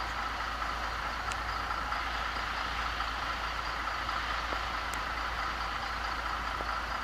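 Steady mechanical drone of running machinery, even throughout with no starts or stops.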